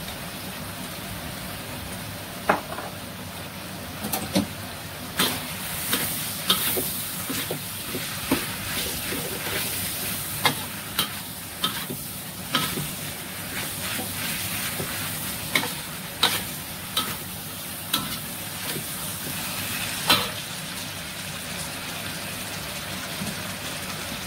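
Beef and vegetables sizzling in a steel wok, with a metal spatula scraping and clanking against the wok as it stir-fries. The sharp clacks come at irregular intervals from about two seconds in until about twenty seconds in, over a steady sizzle.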